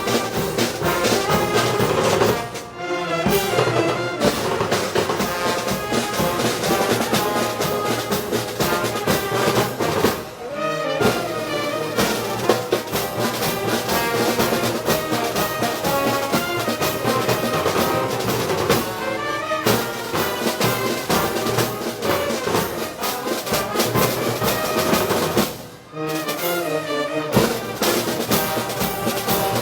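Brass band playing Moros y Cristianos festival music, with trumpets, trombones and drums; the music drops briefly four times, between phrases.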